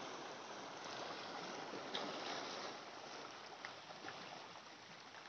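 Faint, steady wash of shallow sea water lapping, with a few light clicks.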